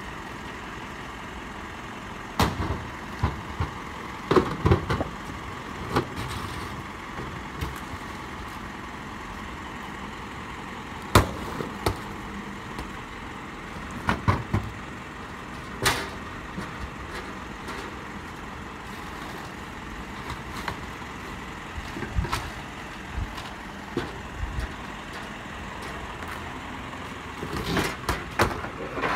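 A steady mechanical hum, like a motor running, with scattered sharp knocks and clanks over it; the sharpest knocks come about 11 and 16 seconds in.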